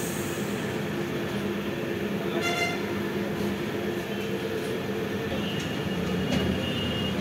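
Steady roadside traffic noise with a constant low drone, and a short high-pitched tone about two and a half seconds in.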